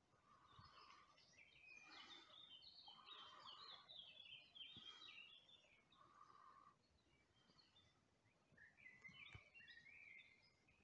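Faint songbird song: quick twittering phrases, a long run through the first half and a shorter one near the end, over quiet background.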